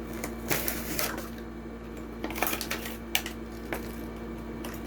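Plastic blister packaging of a die-cast toy plane crackling and clicking as it is pried open by hand, in a string of short, sharp snaps over a steady low hum.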